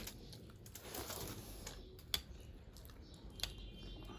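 Faint eating and handling sounds: light clicks and taps, most likely of fingers or a spoon against a plate, with a sharper click about two seconds in and another near the end.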